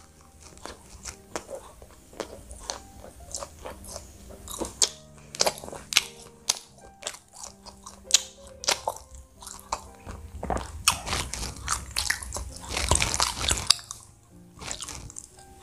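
Close-up chewing of a soft sweet bread roll filled with banana, heard as a run of small irregular mouth clicks and smacks, a little louder near the end. Soft background music plays underneath.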